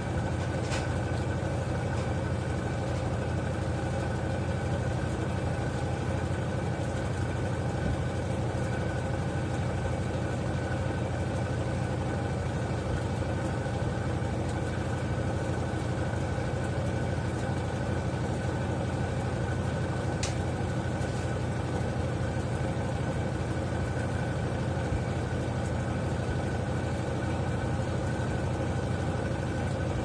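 Consul CWE13AB 13 kg top-load washing machine spinning its basket: a steady motor hum with a low drone, and a faint click twice.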